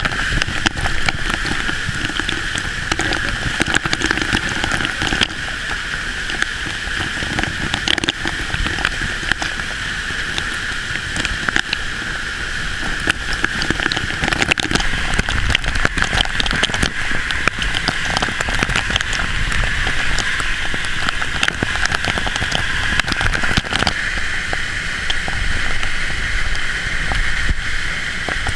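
Flash-flood waterfall pouring down into a slot canyon: a loud, steady rush of falling water, with a constant crackling spatter of spray.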